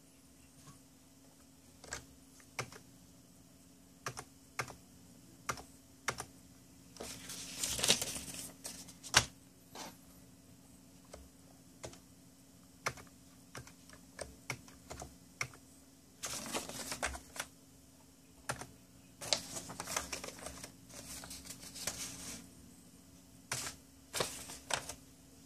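Scattered clicks and taps on a mechanical keyboard, with a few stretches of paper rustling from a card being handled, over a faint steady low hum.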